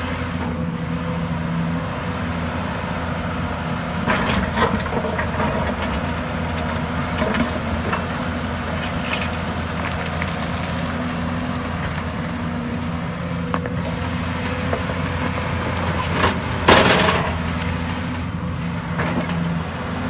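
Hyundai 220 crawler excavator's diesel engine running steadily under work, with a steady hum throughout. Brief louder bursts of noise come about four seconds in and again near the seventeen-second mark.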